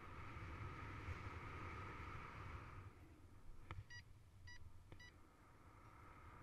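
Wind rushing over the microphone in paragliding flight, with three short beeps about half a second apart near the middle, typical of a paragliding variometer's climb tone.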